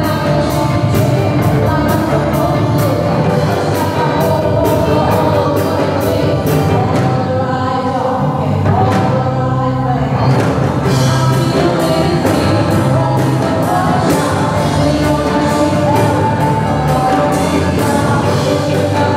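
A live band playing a song: a female singer through a microphone and PA, with electric guitars, keyboard and drum kit. The cymbals drop out for a moment around the middle, then the full band comes back in.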